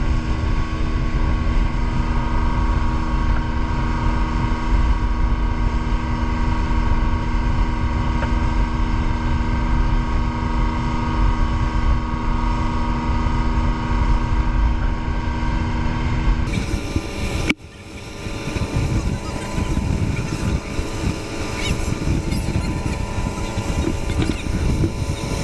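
Motorboat engine running steadily. About sixteen seconds in there is an abrupt change to a rougher, noisier low rumble.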